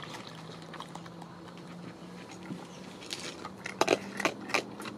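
Raccoon chewing dry kibble from a metal bowl, with light crunches at first and sharp, louder crunches and clicks from about three seconds in as it digs back into the bowl. A faint steady hum runs underneath.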